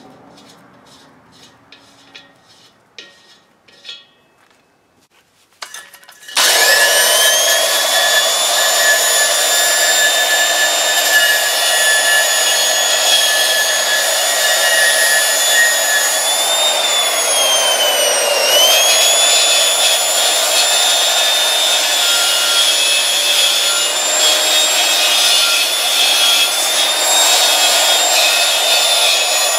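A few light clicks and handling knocks on steel, then about six seconds in an electric angle grinder starts up and grinds the weld bead around a steel pipe nipple welded to a propane cylinder, a loud steady high whine. Its pitch sags briefly once as the disc is pressed harder into the weld, then recovers.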